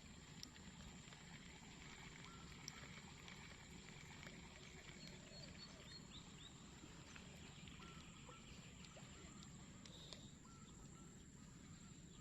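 Near silence: faint outdoor ambience with a few scattered faint ticks and short chirps.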